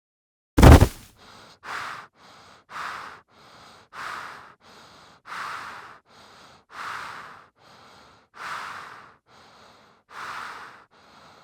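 A sudden loud hit about half a second in, followed by slow, heavy human breathing as a horror sound effect. Each stronger breath is followed by a softer one, about every one and a half seconds.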